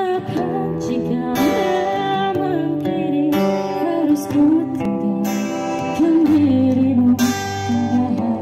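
A young man singing a melody with sliding, held notes into a microphone, accompanied by a strummed acoustic guitar.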